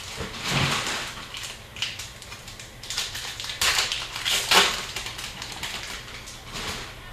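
Upper Deck hockey cards and their packs being handled: irregular rustling and crinkling, loudest in a cluster a few seconds in.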